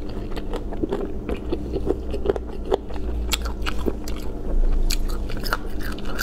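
A person chewing and biting lemon-soured chicken feet and bamboo shoot strips: wet, crunchy clicks and smacks, several a second, over a steady low hum.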